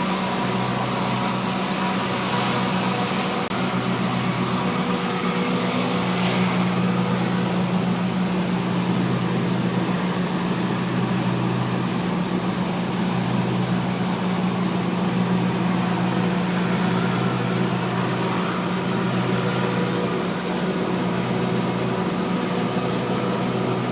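Arc welding a root pass on a flange-to-pipe joint: a steady hiss over a constant engine-like hum that does not change.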